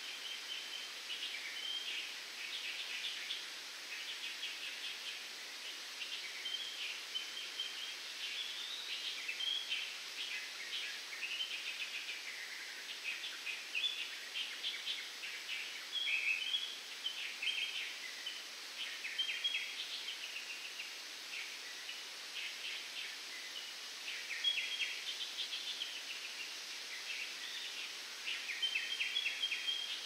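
Many birds chirping continuously in coconut palms, in rapid high notes, over a soft steady hiss of wind through the palm fronds.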